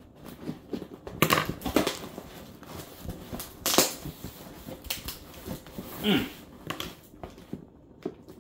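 Small scissors scraping and cutting at packing tape on a cardboard shipping box, giving irregular crackles and scrapes of tape and cardboard, the strongest about a second in and near four seconds in.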